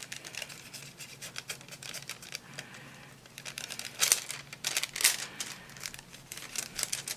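Thin nail-art transfer foil crinkling in quick, light crackles as it is handled and pressed onto acrylic nail tips; the loudest crackles come a little after four and again about five seconds in.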